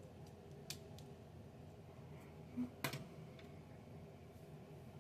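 Lego bricks being handled, making a few faint plastic clicks; the loudest is a quick double click about three seconds in.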